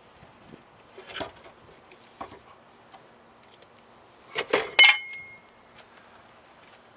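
A few light knocks, then around four and a half seconds in a quick cluster of sharp metallic clinks, the last of which rings briefly with a clear high tone: metal tools or parts being handled at a car's rear axle.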